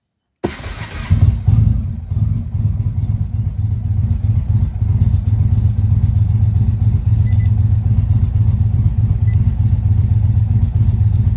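Indian Roadmaster's V-twin engine starting about half a second in, revving briefly, then settling into a steady, even idle just under 1,000 rpm. It is a cold start, running on a freshly flashed DynoJet Power Vision tune that gives it a different idle.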